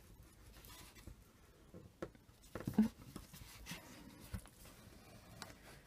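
Bone folder rubbing along folded card stock, pressing the paper down flat; faint, with a few short louder scrapes about two to three seconds in.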